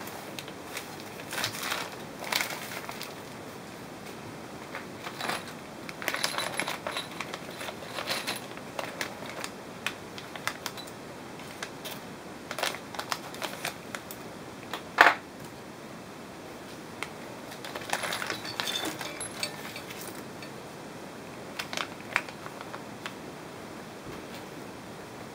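Plastic parts bags crinkling and rustling as they are handled, with a bag snipped open by scissors and small hardware (screws, plastic wall anchors, rubber spacers) clicking and clattering onto a table. One sharp knock about halfway through is the loudest sound.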